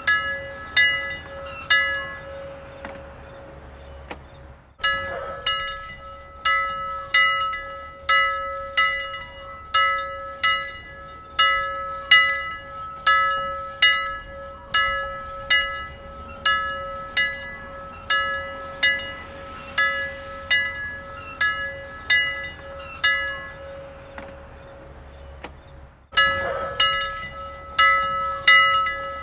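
Church bells ringing, struck about twice a second over a steady lingering hum. Twice the strikes stop for about two seconds, leaving only the fading ring, then start again abruptly.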